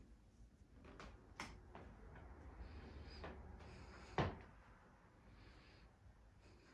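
Quiet room tone with a few light clicks and one sharper knock about four seconds in.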